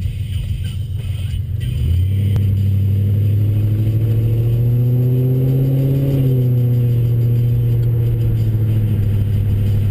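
A 2009 Mercury Grand Marquis's 4.6-litre V8 heard from inside the cabin, breathing through Stainless Works long-tube headers and a chambered cat-back exhaust. A low rumble turns about two seconds in into a loud, deep exhaust drone as the car pulls away. The drone rises in pitch until about six seconds in, then settles slightly lower, and the owner finds it too loud.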